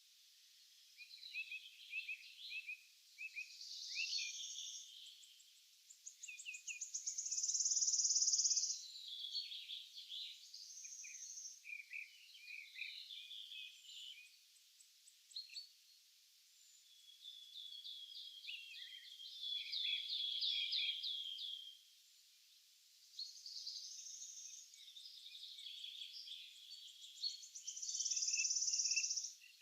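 Several songbirds singing in a forest, overlapping phrases and calls throughout. A loud high buzzy trill comes twice, about a third of the way in and again near the end, and a fast run of repeated notes sounds just past the middle.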